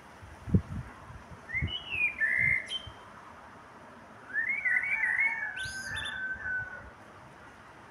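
Common blackbird singing two fluting, whistled phrases: a short one about two seconds in, then a longer warbling one that breaks into a high, squeaky twitter near its end. Two low thumps come in the first two seconds.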